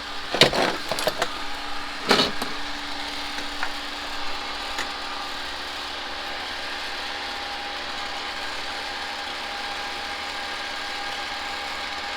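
Vacuum pump running steadily, pulling a vacuum on an air conditioner's refrigerant lines, with a few knocks and clatters of handling in the first couple of seconds.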